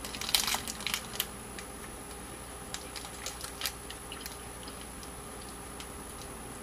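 Biting into and chewing a crunchy toffee-topped caramel on shortbread: crisp crunching clicks, loudest in the first second, then scattered small crunches.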